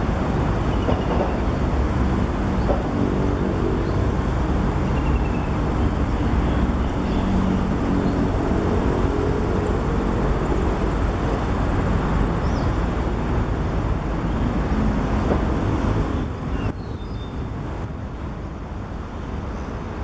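Steady low rumble of motor traffic, with an engine's drone rising through the middle and the rumble easing a little near the end. A few faint bird chirps sound above it.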